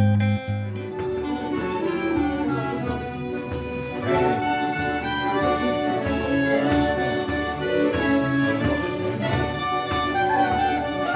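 Folk instrumental music: a clarinet and fiddle playing a tune over a steady rhythmic accompaniment. It takes over about a second in from a louder guitar-led piece.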